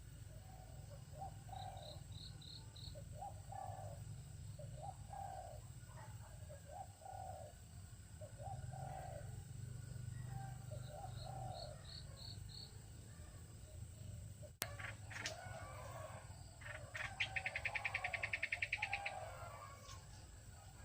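Birds calling: many short low notes, two brief high four-note trills, and about two-thirds through a loud, rapid run of notes lasting a couple of seconds. A single sharp click falls just before that run.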